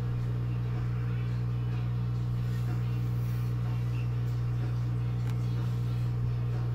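Hot air rework gun blowing steadily onto a surface-mount microcontroller chip, heating its solder to lift it off a TV mainboard: a constant low hum with a rush of air.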